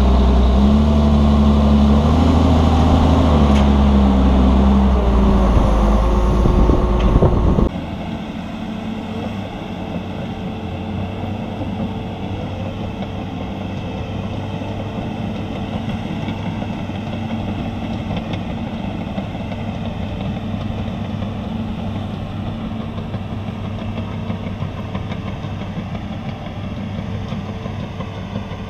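Volvo A35 articulated dump truck's diesel engine running loud under the body as the truck drives, its pitch stepping up and down. About eight seconds in it cuts off sharply to the quieter, steady engine noise of a bulldozer and a roller compactor working at a distance.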